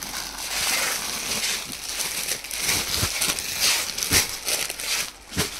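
Clear plastic packaging crinkling and cloth rustling as packed suit pieces are handled and unfolded, with a few short soft knocks.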